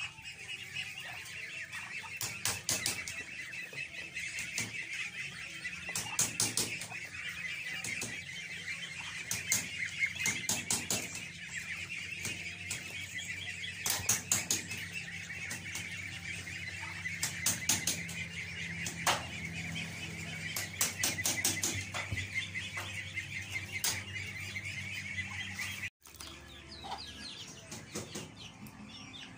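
A backyard flock of Muscovy ducks and ducklings: a dense, steady chorus of high peeping with scattered louder calls. It cuts off abruptly near the end, and quieter fowl sounds follow.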